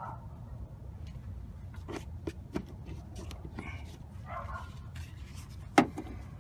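Scattered light clicks and knocks as a rechargeable work light and hand tools are handled under the engine bay, with one sharp knock near the end as the light is set in place. A low steady hum runs underneath.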